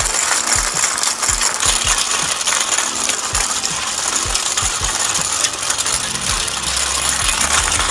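Homemade toy road roller built from plastic water cans, driven by a small DC motor, running with a continuous plastic clatter and rattle and irregular low knocks. A steady low hum joins about six and a half seconds in.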